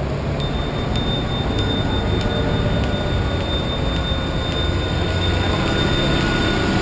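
Brakes squealing in one steady high tone for about six seconds, joined by a second, lower squeal partway through, over the low rumble of street traffic.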